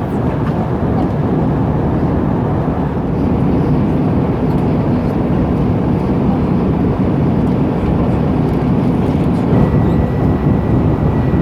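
Steady cabin noise inside an Airbus A320-200 in flight: the low, even rush of the engines and of air over the fuselage. A thin steady high tone joins near the end.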